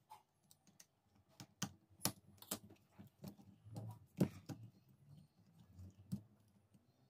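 Irregular light clicks and taps of plastic parts and wires being handled and pressed into place in the open plastic housing of an electric drill, with the loudest knock a little past halfway.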